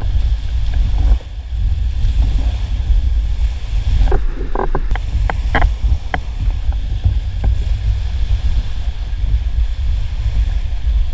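River rapids rushing and churning around an inflatable raft, with a heavy low rumble of wind and water buffeting the microphone. A few sharp splashes come between about four and six seconds in.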